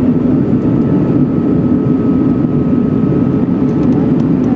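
Steady cabin noise inside an Airbus A320 airliner in flight on its descent: an even rumble of the jet engines and the air rushing past the fuselage, with a faint steady high whine over it.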